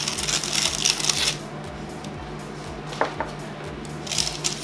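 Rustling and scraping as freshly baked cookies are handled on a baking tray, with a couple of light clicks about three seconds in, over background music.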